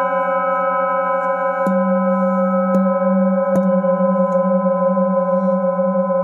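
Hand-held metal singing bowl ringing, a long sustained tone with steady overtones and a slow wavering in its low hum. It is struck lightly with a wooden mallet three times, at about two, three and three and a half seconds in, each knock renewing the ring.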